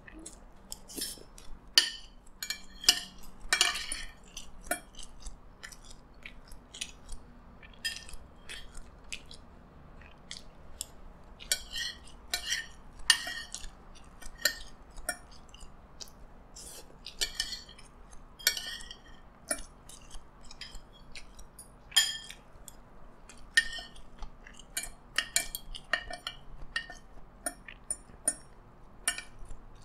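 Metal spoon and fork clinking and scraping on ceramic plates while scooping up fried rice, many short irregular clicks, mixed with chewing and other mouth sounds of eating.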